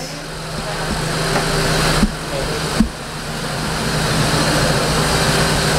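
Steady mechanical running noise, a hiss with a low hum, growing slightly louder, broken by two short sharp knocks about two and three seconds in.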